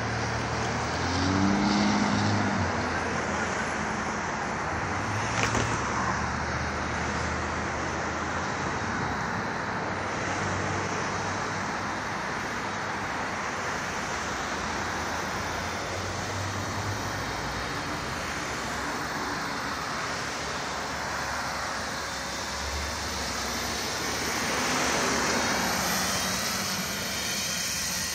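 Steady road traffic noise, with vehicles passing; one swells and fades near the end.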